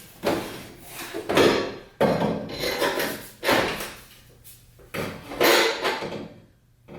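Metal exhaust parts clattering and scraping in about five short bursts as the pipe and its threaded-rod hanger are worked into place.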